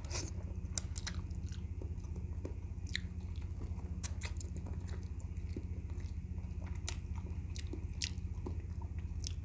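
Close-up eating sounds of a man biting and chewing meat off boiled goat feet held in his fingers: irregular wet smacks and clicks of lips and teeth. A steady low hum runs underneath.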